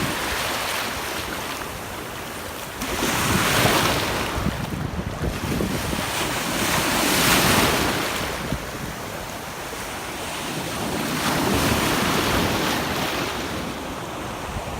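Ocean surf washing and breaking, swelling in about three surges a few seconds apart, with wind buffeting the phone's microphone.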